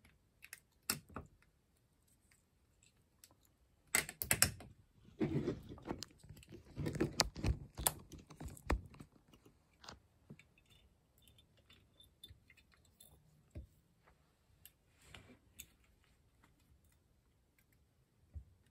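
Small metal clicks, clinks and light scrapes of Solex 28 PICT-1 carburetor parts being handled and fitted together, with a busy stretch of rattling from about four to nine seconds in and scattered ticks after.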